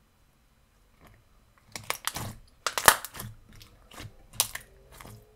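Thick, jiggly clear slime being stretched and squished by hand: a run of irregular clicks and pops that starts about a second in.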